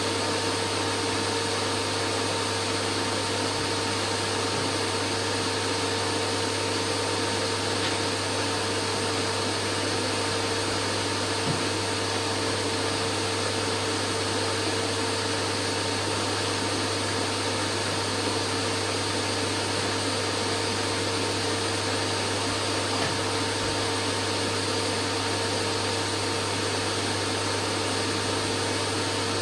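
Steady sleep-aid white noise: an even hiss over a constant low hum, with a few fixed tones like a running motor.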